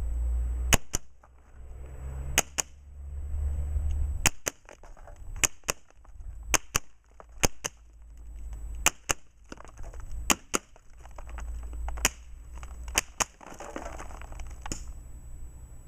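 Huben K-1 semi-automatic PCP bullpup air rifle firing quick double taps, sharp cracks in close pairs about a second or two apart, with pellets smashing clay targets.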